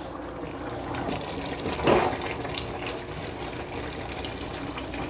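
Rice and spiced stock bubbling in a large aluminium pot while a steel ladle stirs through it, with one louder stir about two seconds in.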